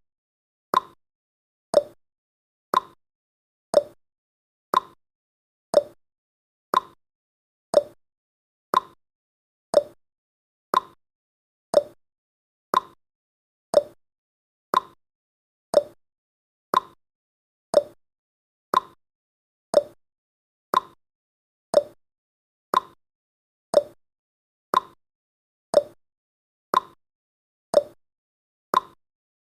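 Clock-style tick-tock sound effect of a countdown timer, one short tick each second, alternating between a higher and a lower tick.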